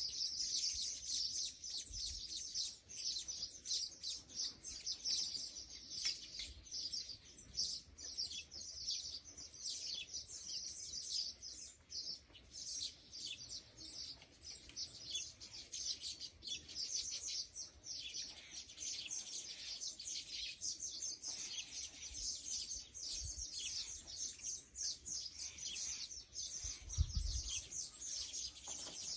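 Many small birds chirping continuously, a dense chorus of quick high-pitched notes, with a brief low thump near the end.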